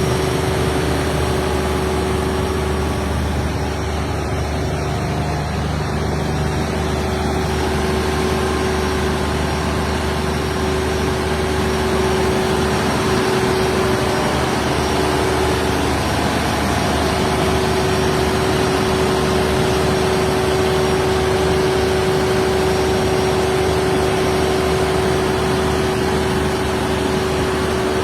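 Cummins QST30 V12 diesel engine of an 800 kVA generator set running steadily, with a steady hum held over the engine noise.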